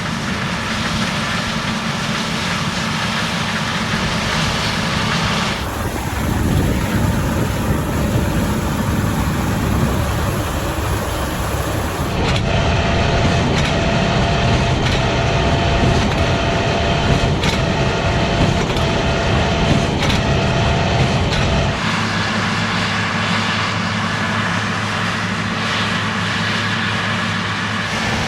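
New Holland combine harvester running while harvesting wheat: a steady engine and machinery drone, spliced from several takes, with abrupt changes about six, twelve and twenty-two seconds in. A thin steady whine runs through the middle section, and a deeper even engine tone fills the last part.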